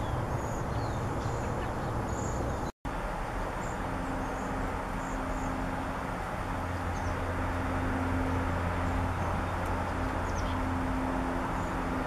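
Cedar waxwings giving faint, high, thin calls, scattered short notes that come more often near the end, over a steady background rumble with a low hum. The sound drops out for an instant about three seconds in.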